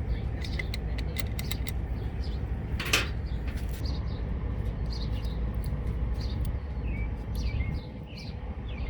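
Birds chirping, with small metal clicks and one sharp clank about three seconds in while the generator's battery terminal bolts are being fitted, over a steady low rumble.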